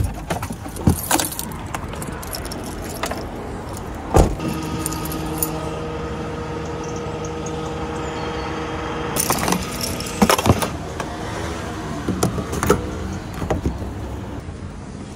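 A Fiat Ducato van's diesel engine running steadily, with sharp clicks and rattles of handling in the cab. Several knocks come in a cluster about ten seconds in.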